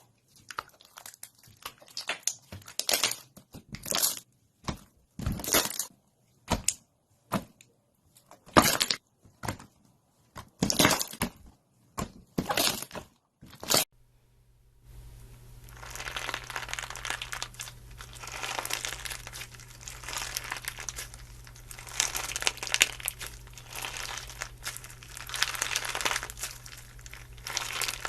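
Slime being squeezed and pressed by hand, first as separate short crackling pops with pauses between them, then, about halfway through, as dense, continuous crackling over a faint steady low hum.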